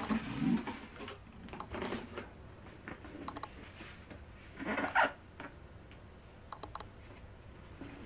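Cardboard boxes being handled: a doll's cardboard carton slid out of a cardboard shipping box and turned in the hands, rubbing and scraping in short bursts with scattered light clicks. The loudest scrape comes about five seconds in.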